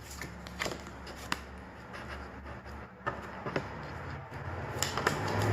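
Scattered light clicks and rustles of photo cards and album packaging being handled, over a low steady hum. A broad rushing noise swells in near the end.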